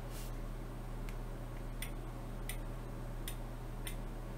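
Light clicks, about six spaced well under a second apart, from the rear wheel of a combination dial lock turned by hand, its spring-loaded copper contacts clicking against the wheel.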